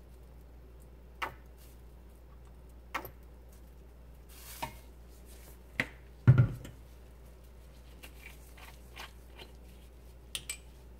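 Scattered sharp clicks and taps from handling oil bottles and a plastic spoon over dried green laver in a frying pan, with one heavier knock about six seconds in.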